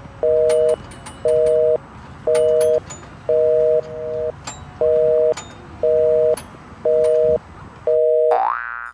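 Telephone busy signal: a two-tone beep, half a second on and half a second off, repeating about once a second. Near the end a rising, wavering tone cuts in over it.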